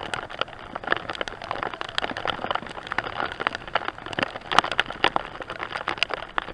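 Heavy rain, its drops striking the cycle camera in many quick, irregular taps over a steady wet hiss.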